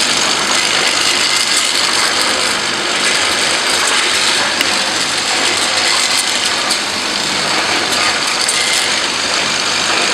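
Automatic glass-bottle filling and capping machine running: a steady mechanical clatter of many small clicks, with a thin, steady high whine.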